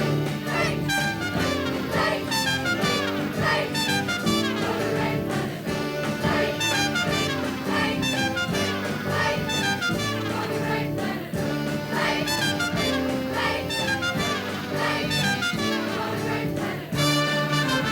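Instrumental break of a band with a brass section, trumpets and trombones playing over rhythmic accompaniment.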